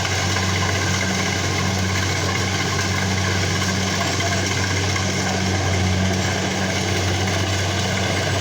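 Engine running steadily at an even speed, a continuous low drone.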